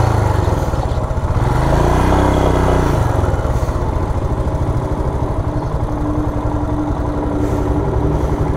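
Royal Enfield Himalayan's 411 cc single-cylinder engine running at low revs with a steady low beat.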